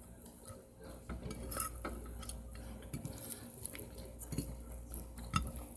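Quiet eating sounds: a handful of light clicks and taps of dishes and cutlery.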